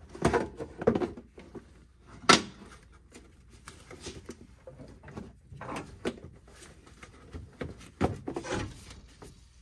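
A 2003 Ford F-150's plastic air filter housing being worked into place by hand: hollow plastic knocks, rubbing and clicks as its tabs are pushed into the rubber grommets, the loudest a sharp click about two seconds in.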